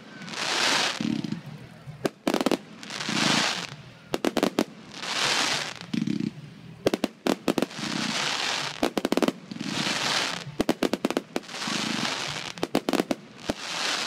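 Fireworks firing shot after shot, roughly one every two seconds: each shot is a hiss followed by a dull boom, with sharp crackling pops from the bursting stars in between.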